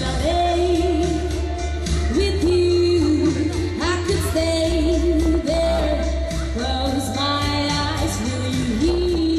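A voice singing a pop song's melody, held notes rising and falling, over a band accompaniment with a heavy, continuous bass.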